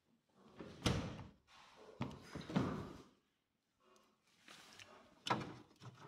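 Refrigerator and freezer doors being shut and opened, with a plastic bottle handled inside: four separate thuds and clunks, the loudest about a second in.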